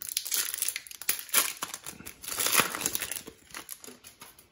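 The foil wrapper of an Optic basketball trading-card pack crinkling as it is torn open by hand. The dense crackling thins out in the last second.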